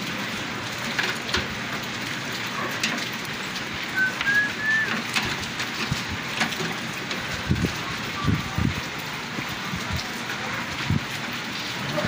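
Small clicks and dull knocks of hands and a screwdriver working on microwave oven wiring, over a steady hiss. Three short high chirps come about four seconds in.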